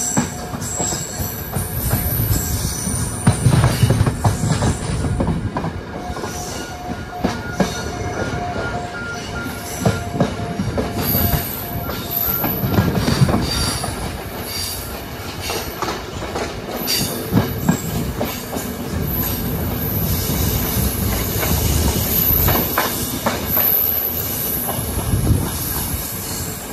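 Passenger train carriage running on the track, heard through an open door: a steady rumble with scattered knocks of the wheels over rail joints and points, and thin high wheel squeals now and then.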